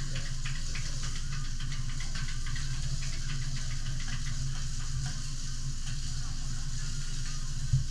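Kobe beef steak sizzling on a teppanyaki griddle, a steady hiss with many small pops, over a steady low hum. A single low thump near the end.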